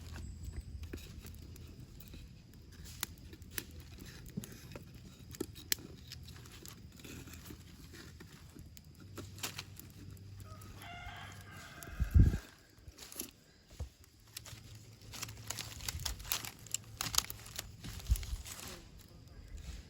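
A rooster crows once, a little past the middle, over scattered clicks and rustling; just after the crow comes a loud low thump, the loudest sound here.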